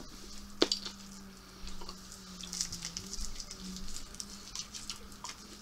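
Small wrapped candy's wrapper crinkling as it is twisted open by hand: a sharp click about half a second in, then a run of light crackles.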